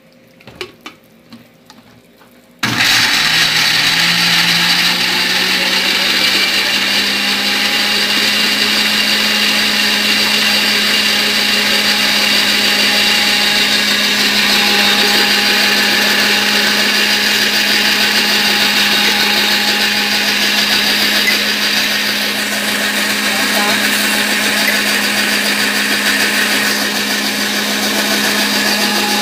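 Countertop blender switched on about three seconds in, its motor spinning up quickly and then running steadily as it purées raw tomatillos, chiles, garlic and a little water into salsa. A few light knocks come just before it starts.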